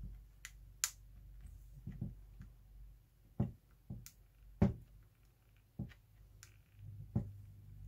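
Irregular small clicks and taps of metal tweezers and fingers handling wires inside a cordless drill's opened plastic housing, with a few duller knocks.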